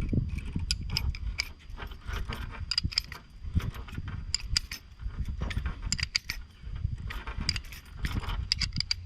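Wrench tightening the bolts of a bolt-type hand swaging tool, with irregular metal clicks and clinks as the jaws close down on a copper ferrule on rigging cable, over a low rumble.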